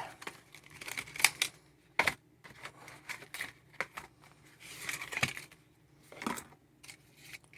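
Unboxing a small flashlight's packaging: scattered clicks, taps and knocks from handling the box and its contents, with a brief stretch of rustling about five seconds in.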